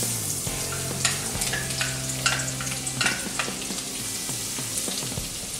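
Chopped garlic dropping into hot oil in a pan and sizzling, with a spatula stirring and scraping against the pan a few clicks at a time.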